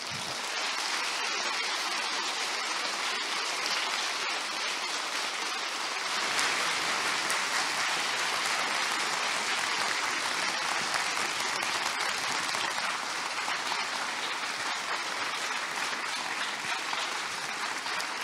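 Audience applauding steadily, a little louder from about six seconds in.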